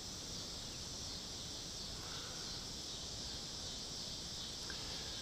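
Steady high-pitched chorus of insects, an even drone with no breaks.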